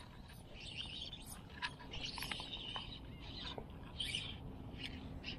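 Faint bird chirps over quiet outdoor background noise, with a few light ticks.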